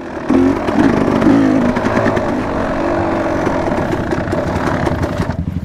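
Enduro dirt-bike engine revving under load, its pitch rising and falling, then dropping back to a slow, low chug near the end.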